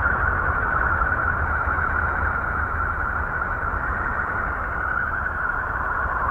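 Voyager 2's radio recording of Uranus converted into sound: a steady, wavering eerie hiss, strongest in a high-middle band, over a constant low rumble.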